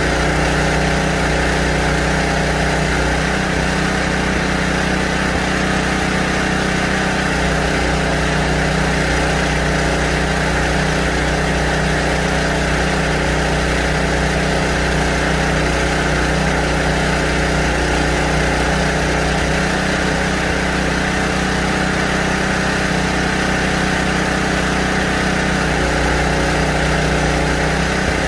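Portable generator's engine running at a steady speed, with no change in pitch or level.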